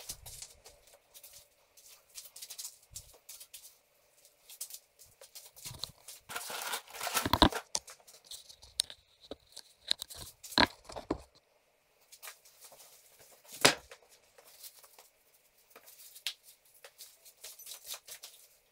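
Irregular clicks, knocks and short scraping strokes of hand work on metal drywall studs and an old plaster wall. The longest rasping stretch comes about six to seven seconds in, with sharp knocks near ten and near fourteen seconds.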